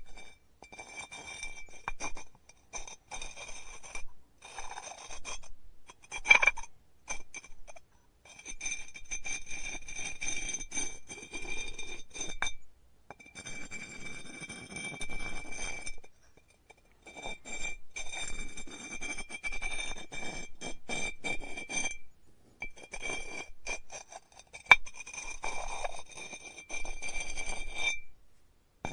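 Pottery tools scraping and rubbing on clay in stop-start passes, each pass carrying a thin high ringing tone. A few sharp clinks cut in, the loudest about six seconds in and near the end.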